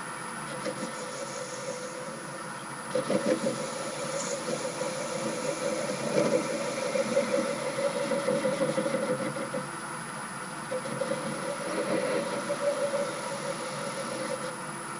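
Myford lathe running steadily while the tool cuts an aluminium ball handle. The cut comes and goes in several louder, rougher stretches over the machine's hum.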